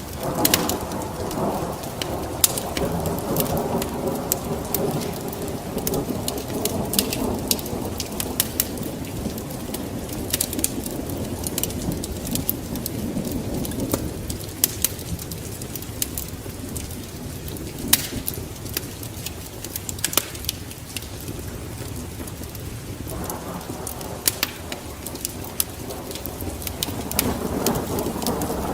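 Thunder rumbling over steady rain. The rumble is strongest at the start, eases off in the middle and builds again near the end. Sharp crackles and pops from a wood fire run through it.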